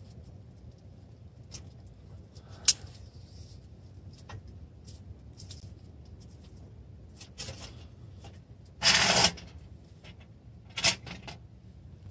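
Small handling noises while tending a wood stove: a couple of sharp clicks and light rubbing and scraping, with one short, loud rushing burst about nine seconds in.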